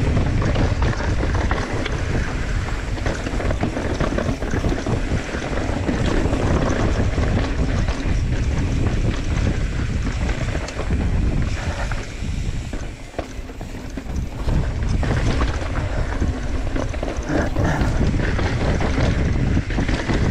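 Mountain bike riding fast down a rough dirt trail: tyres rumbling over dirt, rocks and roots, the bike rattling with frequent knocks over bumps, and wind buffeting the camera's microphone. It eases off briefly about two-thirds of the way through.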